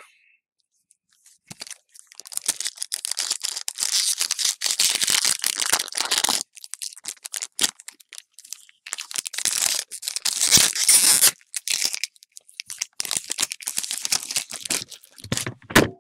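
Foil Pokémon booster pack wrapper being torn open and crinkled in the hands, in several spells of crackling. Just before the end comes one loud thud as the camera stand is knocked over onto the table.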